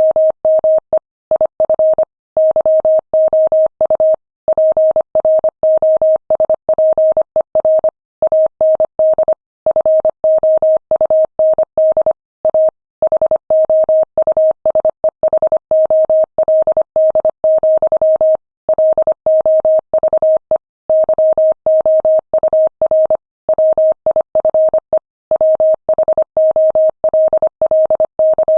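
Morse code sent at 25 words per minute: a single steady tone keyed on and off in rapid dots and dashes, with short gaps between letters and slightly longer gaps between words.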